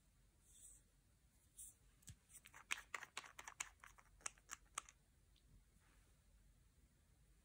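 Nail polish bottle's plastic cap being twisted open in the fingers: a run of quick, irregular clicks and crackles, from about two seconds in to about five seconds in.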